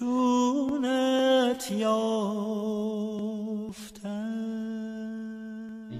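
A voice singing long held notes without words in a Persian classical song, wavering in quick ornaments on some notes, in three phrases broken about a second and a half in and again near four seconds.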